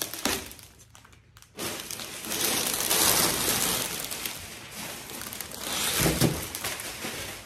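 Dense plastic wrapping crinkling and rustling as it is pulled off a large panel, with a low thump about six seconds in.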